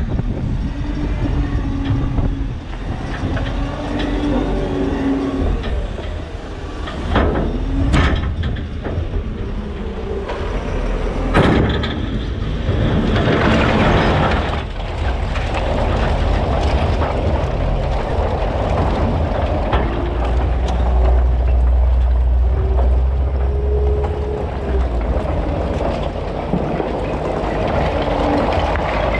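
JCB 531-70 telehandler's diesel engine running under load with a faint changing hydraulic whine, while its steel bucket pushes a heap of split firewood across a concrete pad. The logs clatter and tumble against each other and the bucket, with a few sharp knocks and a longer spell of sliding, rattling wood about halfway through.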